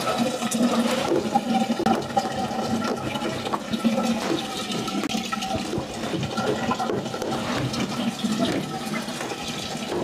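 Top-loading pulsator washing machine draining its soak water: a steady rush of water running out, with a faint steady hum under it.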